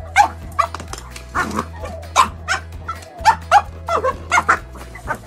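Dog barking in a quick series of short, sharp barks, about ten in all, over steady background music.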